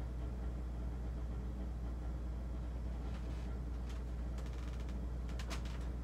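Steady low hum under even background noise, with a few faint clicks in the second half as sauce is poured from a bottle.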